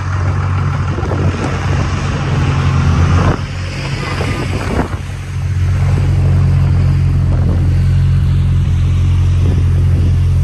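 City street traffic dominated by a heavy vehicle's engine running close by, a steady low drone. Passing traffic hiss is mixed in over the first three seconds or so; about five seconds in the drone grows louder and steadier.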